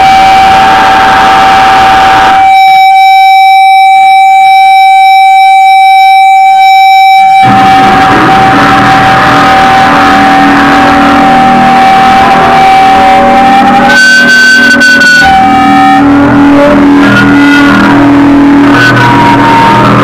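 Very loud live electric guitar and band noise through amplifiers, dominated by a high held tone lasting about thirteen seconds. For about five seconds early on the bass drops out and only a stack of ringing tones remains; near the end the held pitches shift up and down.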